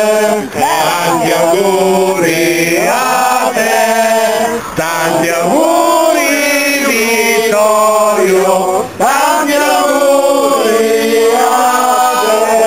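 A group of voices, men's among them, singing a song together with an accordion playing along, holding each note for about a second.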